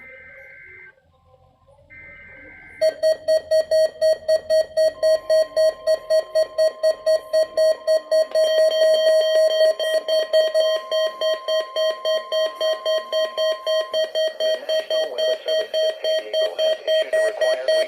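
NOAA Weather Radio Specific Area Message Encoding (SAME) header: two short warbling two-tone digital data bursts. About three seconds in, a weather radio receiver's alert goes off, a loud buzzy beeping at about four beeps a second that runs on to the end, with a faint steady tone under it through the middle.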